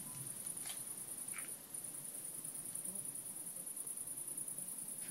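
Crickets trilling: a steady, high, finely pulsing trill that breaks off briefly about a second and a half in, with a couple of faint clicks.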